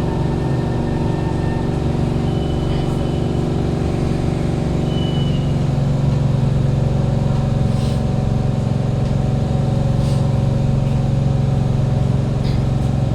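Steady, loud hum of the air-conditioning and ventilation system inside a Kawasaki Heavy Industries C151 train carriage, a low drone holding several even tones, with a few faint ticks.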